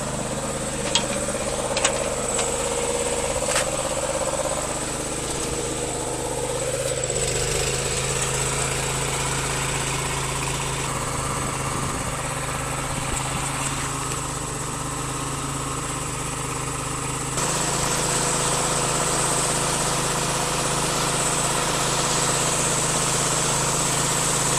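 A machine running steadily with a thin high whine, a few sharp knocks in the first few seconds, and a step up in loudness about seventeen seconds in.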